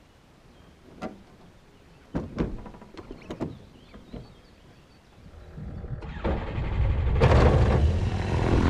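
Cockpit canopy of a Diamond DA20-A1 Katana being closed, with a few short clunks and clicks as it shuts and latches. A few seconds later the aircraft's engine is cranked and catches, rising into a steady run.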